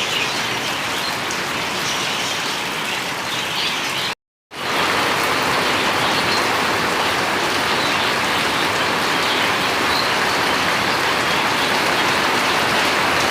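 Steady, fairly loud rainfall hissing without a break except for a brief cut-out about four seconds in.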